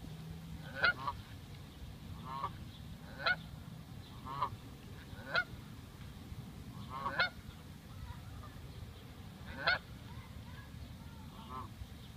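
Canada geese honking: about eight short, separate honks a second or two apart, some higher and sharper, a few lower and softer.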